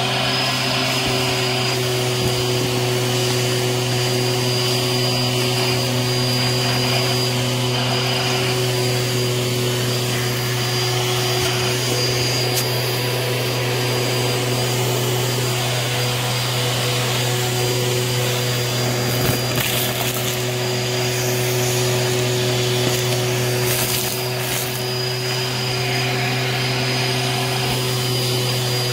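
Bissell Helix Turbo vacuum cleaner running steadily with a high whine, its crevice tool sucking up fluff, confetti and gritty dirt from a cardboard box. A few brief crunchy crackles come through as debris is pulled in.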